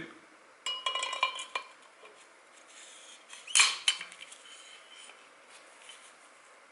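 Steel motorcycle fork tubes clinking and ringing as the inner tube with its bushings is slid back into the outer tube. A ringing metallic clink comes about a second in, and two sharp clinks come at about three and a half seconds.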